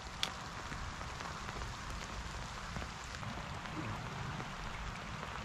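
Steady rain falling, an even hiss with no let-up, and a single sharp click just after the start.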